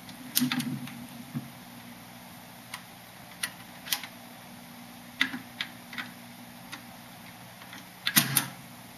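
Fisher C-20 record changer (built by BSR) running through its cycle after its control lever is moved: a clunk as the mechanism engages, then scattered ticks and clicks as the tonearm lifts and swings back, and the loudest clunk about eight seconds in as the arm comes home. Under it all runs a faint low hum from the turntable's motor.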